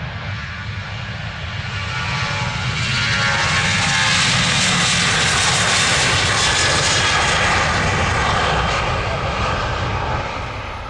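An airliner passing close by: its engine noise swells over a couple of seconds, stays loud through the middle, then fades away near the end.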